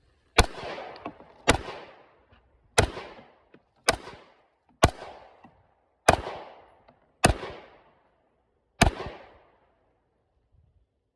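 Smith & Wesson CSX 9mm pistol firing eight aimed shots, about a second apart, each followed by a short echo.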